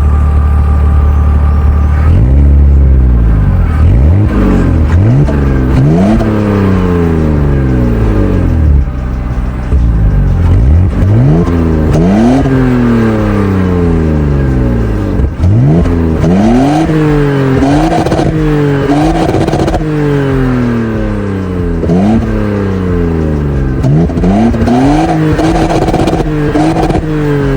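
BMW 520i engine free-revving through a Friedrich Motorsport rear silencer. It idles at first, then is blipped about ten times, each rev climbing quickly and falling slowly back toward idle.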